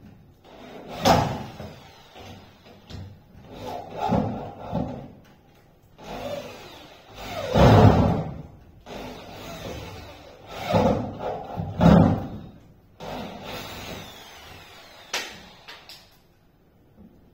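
Carpentry work on wooden door panelling: irregular wooden knocks and scrapes, about seven bursts of half a second to a second each, with a sharp single knock near the end.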